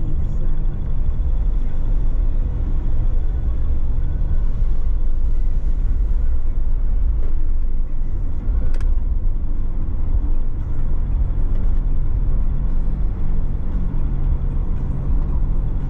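A car driving along a narrow country road: a steady low engine and road rumble, its pitch firming up a little after about ten seconds. One short sharp click comes just under nine seconds in.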